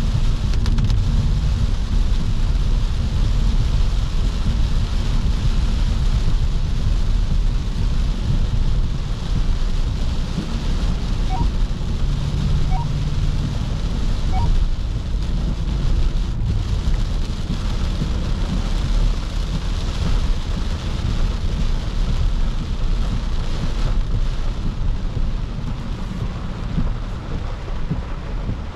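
Cabin noise of a 2009 Audi S5 driving in heavy rain: a steady low road and drivetrain rumble under a hiss of rain and tyre spray on the wet road. It quietens a little near the end.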